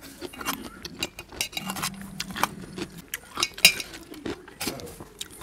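Close-up chewing of crunchy food: an irregular run of wet crackles and clicks, the sharpest about three and a half seconds in.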